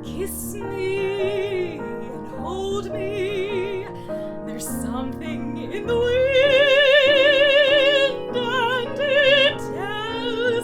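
A woman singing with a strong vibrato over piano accompaniment, swelling to a long held note about six seconds in.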